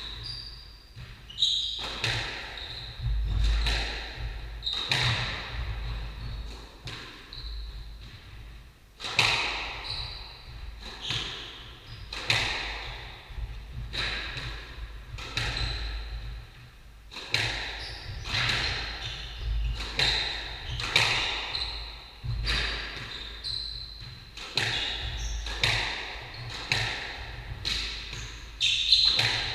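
Squash rally: the ball is struck hard by rackets and smacks off the court walls, sharp hits about every second or so, each ringing on briefly in the court.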